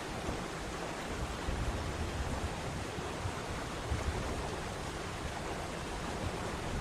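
Waterfall: a steady rush of falling water, with a deep rumble underneath that swells and fades unevenly.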